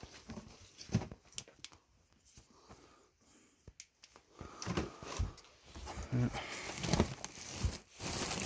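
Rummaging by hand through clutter: rustling and crinkling of bags and fabric, with scattered clicks and knocks of objects being handled, quieter in the middle and busier in the second half.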